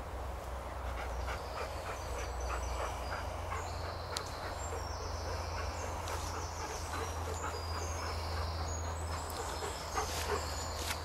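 Small birds chirping in the woodland over footsteps through undergrowth, with a steady low rumble underneath.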